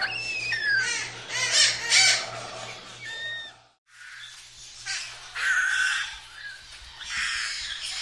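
Parrots calling: repeated squawks and chatter mixed with short gliding whistled notes. The calls break off briefly about halfway, then go on.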